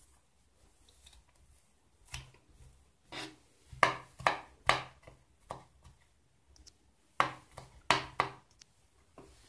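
Metal spoon scraping and knocking against a ceramic bowl while stirring chopped walnuts into grated celeriac in yogurt: about a dozen separate, irregular strokes starting about two seconds in.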